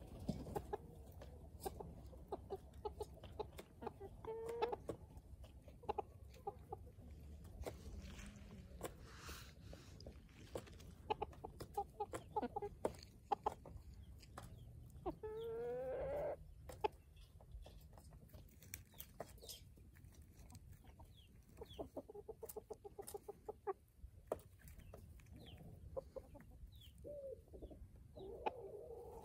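Chickens clucking in short, scattered calls, with one longer rising call about halfway through.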